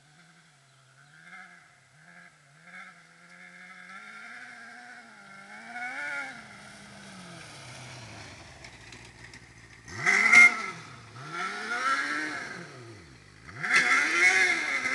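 Engine of a 600cc kart cross buggy driving across a field. It is faint and distant at first, its pitch wavering as the throttle changes. From about ten seconds in it grows loud, with the engine revved up and down several times in quick succession.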